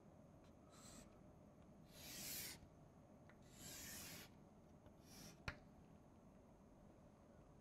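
Chalk scraping on a blackboard as lines are drawn: four separate strokes, each under a second, the second and third the loudest, then one sharp tap.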